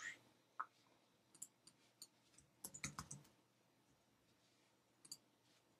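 Faint, scattered clicks of a computer keyboard and mouse, with a short run of keystrokes about three seconds in.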